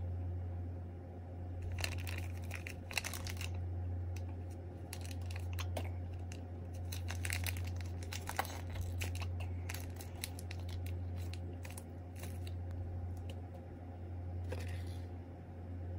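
Foil retort pouch of beef curry crinkling and crackling in the hands as it is squeezed and crumpled to push the curry out, in a string of short crackles, over a steady low hum.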